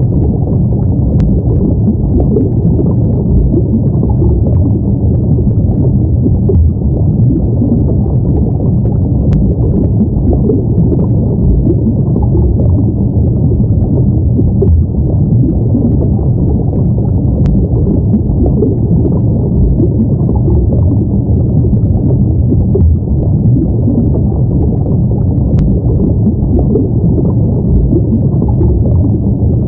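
Steady underwater ambience: a muffled, low rumble of moving water, without let-up.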